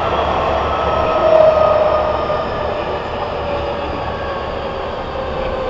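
Nagoya Municipal Subway N3000-series train running, heard from inside the car: steady wheel and running rumble with a traction-motor whine that slowly falls in pitch, swelling briefly about a second and a half in.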